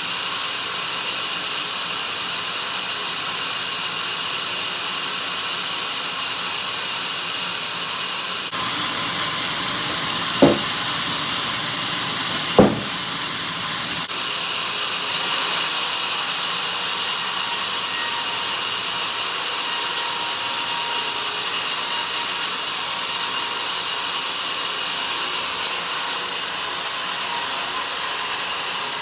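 Sawmill band saw cutting a log: a steady hissing run with two sharp knocks about ten and twelve seconds in. About halfway through the cutting gets louder and brighter and stays that way.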